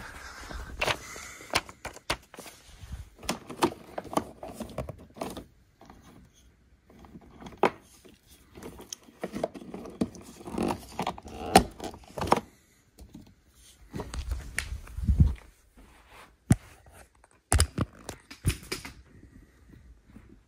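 Handling noise from assembling a kids' electric ride-on car: irregular clicks, knocks and scrapes of its parts being fitted, with a few short pauses.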